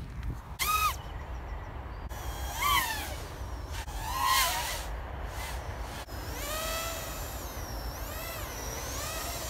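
A Diatone GT-R349 3-inch FPV racing quad's brushless motors whining. The pitch sweeps sharply up and down with the throttle in three short bursts, then a longer whine starts about six and a half seconds in and keeps rising and falling.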